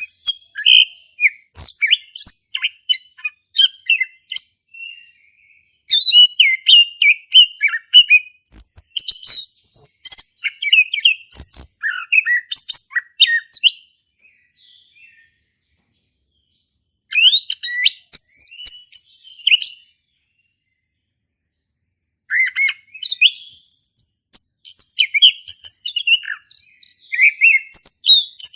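Male chestnut-capped thrush singing a full, rapid song of varied whistles and chirps in long runs, broken by two short pauses partway through.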